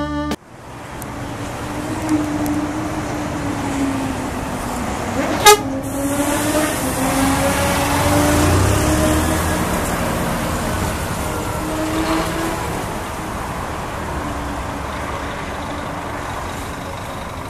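Street traffic as a new Marcopolo Paradiso G8 double-decker coach drives past and pulls away, with a motorcycle alongside: a steady road and tyre rush under engine hum whose pitch slowly shifts. One brief, sharp, loud sound about five and a half seconds in.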